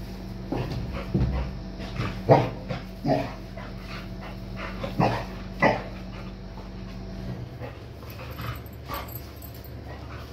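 Golden retriever giving a string of short barks and whines, loudest about two and five and a half seconds in, thinning out after that. A steady low hum underneath cuts out about seven seconds in.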